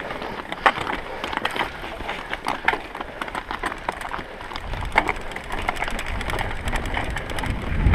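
Mountain bike ridden over rough, bumpy grass, with a constant irregular clatter of clicks and rattles from the bike's chain and freewheel. A low rumble sets in about halfway.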